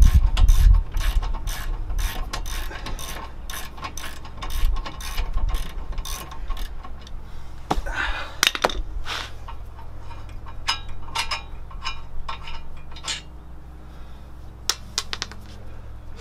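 Ratchet wrench clicking in quick runs as the brake caliper's two 17 mm bolts are backed out. The clicks come thick in the first half and thin to scattered clicks later.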